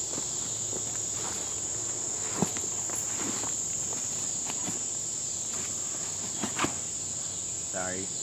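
Scuffling on leaf litter: footsteps and rustling, with a sharper thump about two seconds in, over a steady high-pitched insect chorus.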